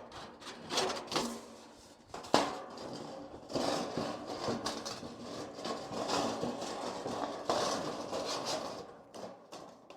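Metal clattering, rattling and scraping as a chimney liner and its fittings are handled, with a sharp knock about two and a half seconds in.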